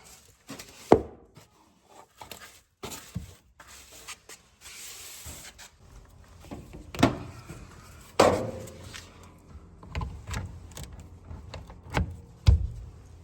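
Scattered knocks, clicks and rubbing from hands and hardware while a power cord is fastened to the back of a clothes dryer: a sharp knock about a second in, a stretch of scraping near the middle, more clunks after, and a low thud near the end.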